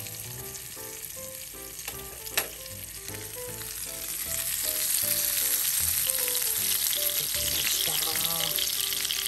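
Pork-belly rolls wrapped around green peppers sizzling in a small skillet over a wood fire, the sizzle growing louder about halfway through. There is a single sharp clink about two seconds in, over soft background music.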